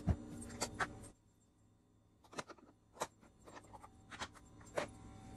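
A handful of scattered sharp plastic clicks and taps as a small lidded plastic sauce cup and a clear plastic lunchbox are handled and its lid opened.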